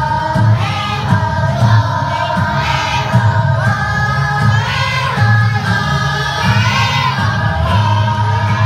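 Children's choir singing together, changing notes every half-second or so.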